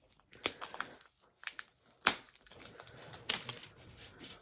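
Paper wrapping being peeled and torn off a small plastic toy capsule, in irregular crinkles and sharp crackles, the loudest about two seconds in and again just after three seconds.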